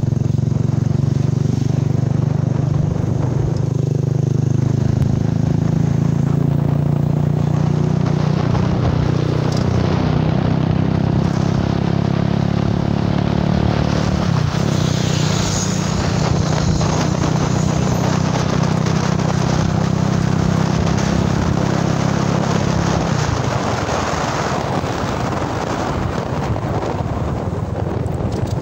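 A car driving along a road: a steady low engine hum over constant road and wind noise. The engine hum drops away about three quarters of the way through while the road noise carries on.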